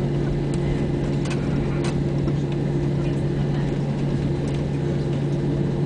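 Airbus A320 cabin while taxiing: the jet engines' steady drone at low power, with a low hum and a second, higher steady tone. A few light clicks and rattles are scattered through it.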